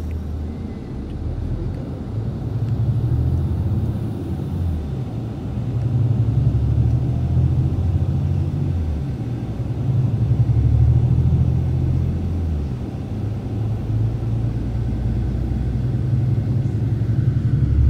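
Intercape coach heard from inside the passenger cabin while under way: a loud, steady low engine and road rumble whose pitch steps up and down every few seconds.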